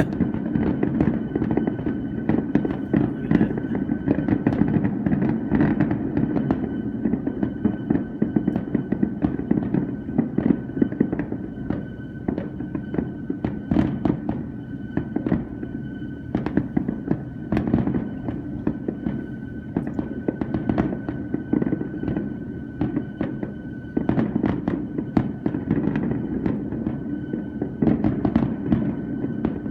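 Fireworks show: a continuous run of booms and sharp pops, several a second, over a low rumble. A steady high whine runs underneath.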